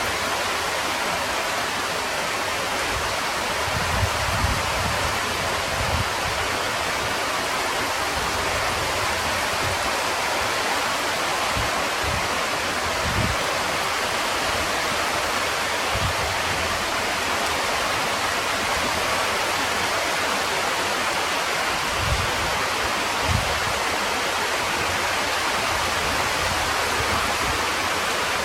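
Heavy rain pouring down: a steady, dense hiss, with a few brief low thumps scattered through it.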